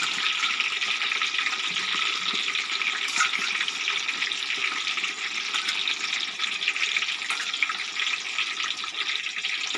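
Steady sizzling hiss of food frying in hot oil.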